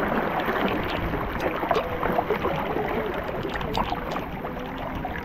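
Heavy rain falling: a steady hiss full of small drop impacts. A faint steady whine joins about two seconds in.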